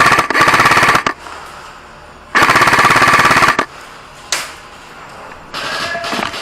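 Airsoft electric rifle firing full-auto bursts, a rapid even rattle: one burst at the start and another from about two and a half to three and a half seconds in. A single sharp shot follows, and quieter firing comes in near the end.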